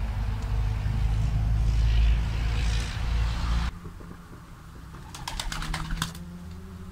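A loud low rumble stops abruptly about three and a half seconds in. Then domestic pigeons coo softly, and a quick run of sharp wing claps comes from a pigeon flapping its wings about five to six seconds in.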